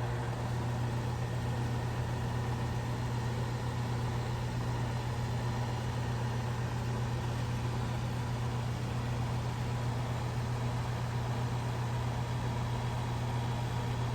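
Goodman air-conditioning compressor running with a steady low hum.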